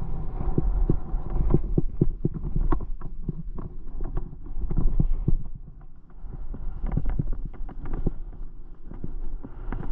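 Skis running over chopped-up, bumpy snow: a steady low rumble with many irregular knocks and scrapes, easing briefly about halfway through.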